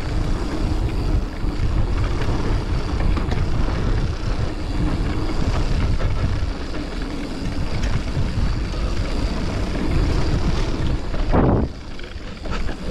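Wind buffeting the camera microphone while a mountain bike rolls fast down a dirt trail, with the tyres and frame rattling. A short sharp noise comes near the end, and after it everything is quieter, as the bike slows.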